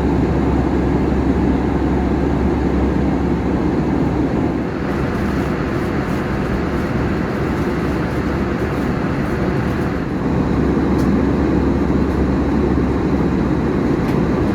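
Airbus A321 cabin noise at cruise: the steady roar of the engines and the airflow over the fuselage, heard from a passenger seat.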